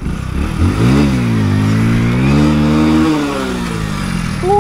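Hero Splendor motorcycle's small single-cylinder four-stroke engine revving under throttle: the pitch climbs about a second in, holds high for a couple of seconds, then falls away near the end as the throttle is eased off.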